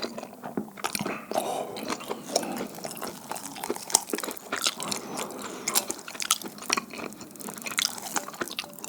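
Close-miked mouth sounds of someone chewing a sticky, chewy dumpling: a steady run of irregular wet clicks and smacks.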